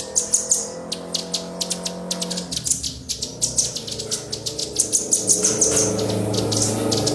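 Small songbirds chirping in fast runs of short, sharp, high notes, several a second, with a faint low steady hum underneath.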